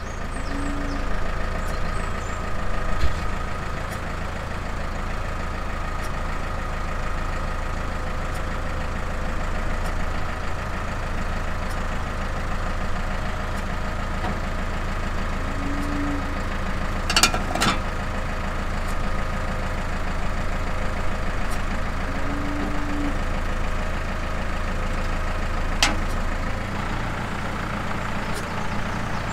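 McCormick tractor engine idling steadily after a cold start, left to warm up. Two sharp clicks cut in, about halfway through and again near the end.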